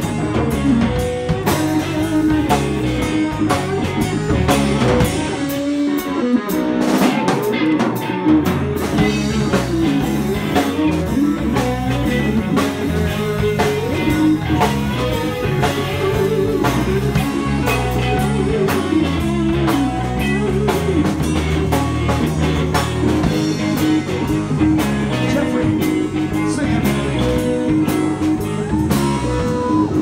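Live band playing blues-rock, with electric guitar over a drum kit.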